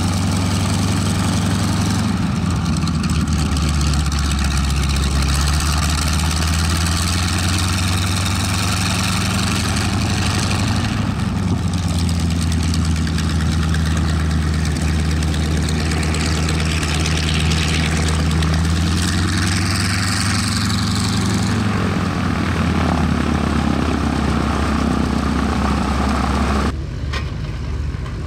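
Nine-cylinder radial engine of a North American T-6 Texan trainer running at idle as it sits and then taxis, a steady low pulsing note that shifts a little in pitch twice. Near the end it cuts off suddenly to quieter engine sound.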